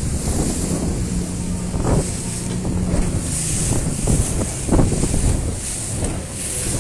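Wind buffeting the microphone over water rushing and splashing against a moving inflatable boat, with the steady low hum of the boat's engine; a couple of louder splashes about two seconds and nearly five seconds in.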